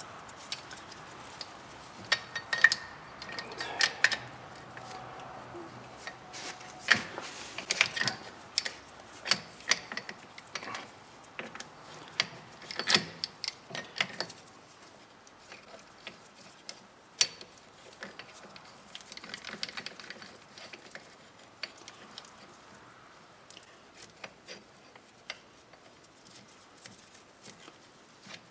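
A brake caliper piston reset tool being worked to push a rear brake caliper piston back into its bore, making irregular metal clicks and knocks. The clicks are fainter and sparser after about halfway.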